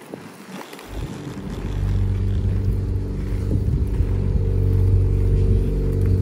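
Inline skate wheels rolling over asphalt and then a concrete sidewalk: a low, steady rumble that builds from about a second in, with an occasional click.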